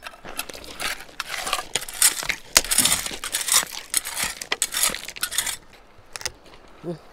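Dry branches and brush crunching and snapping in a quick, irregular run of sharp cracks for about five and a half seconds, then thinning out.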